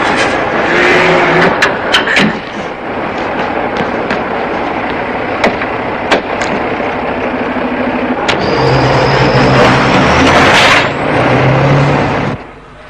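Heavy trucks on the road: loud, noisy vehicle sound with scattered sharp clicks. An engine hum comes in about two-thirds of the way through, then a surge of noise with a high rising whine, before the sound drops away suddenly near the end.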